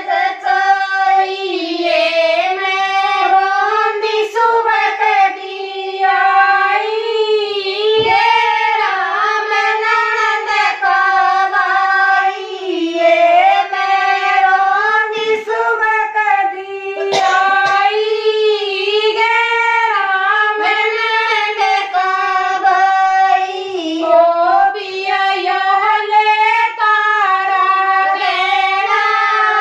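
Women singing a Haryanvi jakdi folk song without instruments, in a high voice carrying a continuous, flowing melody.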